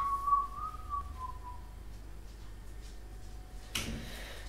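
A person whistling a single wavering note that slowly drifts lower and stops about a second and a half in, followed by faint room tone and a short rustle near the end.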